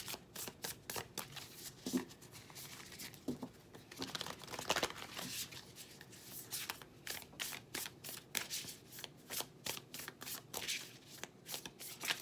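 Deck of animal oracle cards being shuffled overhand by hand: a steady run of quick card slaps and riffling, about three or four a second, with a denser flurry about four to five seconds in.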